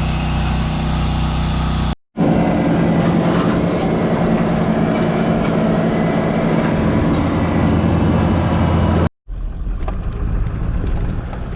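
Engine running steadily, heard as three clips joined by abrupt cuts about two seconds in and about nine seconds in; the middle clip is the loudest.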